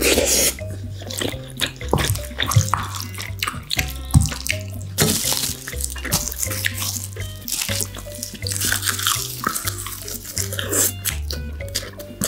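Wet eating sounds of marinated raw crab: sucking, slurping and chewing clicks, over background music with a stepping bass line.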